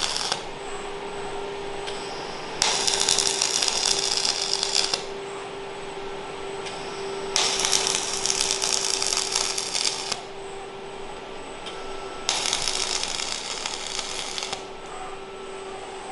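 Flux-cored wire welding arc (0.052-inch wire on a Lincoln Electric Power Wave) crackling as a robot welding arm lays tack welds. The end of one weld comes first, then three separate welds of about two and a half seconds each, with pauses of about two seconds between them. A steady hum runs under it all.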